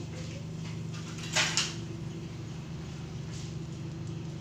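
A steady low hum of kitchen background noise, with one short, sharp double clatter about a second and a half in.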